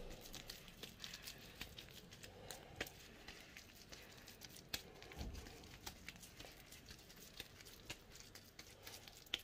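Faint, irregular crackling and rustling of dried corn husks as they are wrapped by hand around a ball of corn dough.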